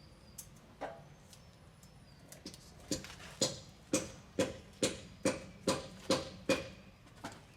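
A run of about nine sharp metal-on-metal hammer blows, evenly paced at roughly two a second, each ringing briefly, after a few scattered lighter knocks.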